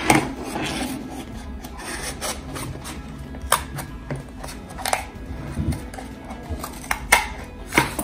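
Scissors snipping through a cardboard toilet paper roll in short, irregular cuts, about one every second or so.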